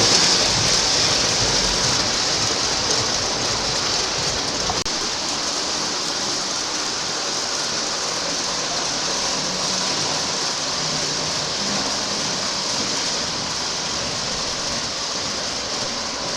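Lionel O-gauge model subway train running along three-rail track: a steady hissing rumble that slowly grows a little quieter.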